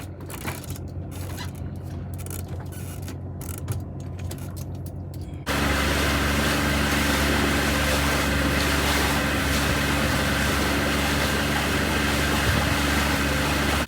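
A small fishing boat's outboard motor running steadily, low at first. About five seconds in it suddenly becomes much louder and stays steady, then stops abruptly at the end.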